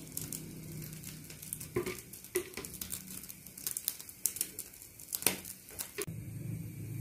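Faint kitchen handling sounds: a few light clicks and taps around a nonstick frying pan as coconut oil is poured in to heat, over a low steady hum that grows a little stronger about six seconds in.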